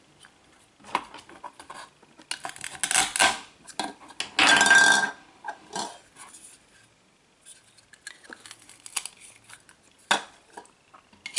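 Toy wooden knife cutting a Velcro play-food red pepper: small taps and clacks of the toy pieces, with two rasping rips as the Velcro halves pull apart, about two and a half and four and a half seconds in.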